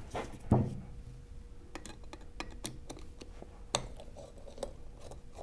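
Large Phillips screwdriver turning threadlocked screws out of a metal flange: scattered light metallic clicks and scrapes, with a dull knock about half a second in.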